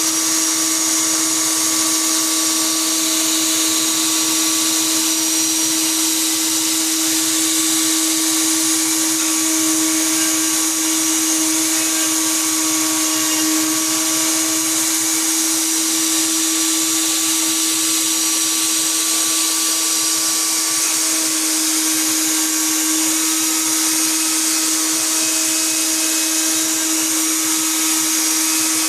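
Bosch 1617EVS router motor running at high speed, a steady whine with a dense hiss.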